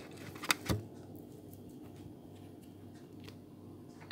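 Two sharp clicks a fraction of a second apart, then quiet room tone with a few faint ticks.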